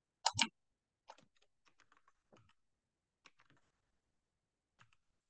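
Two quick, louder clicks near the start, then light computer-keyboard typing: scattered faint key taps for about four seconds.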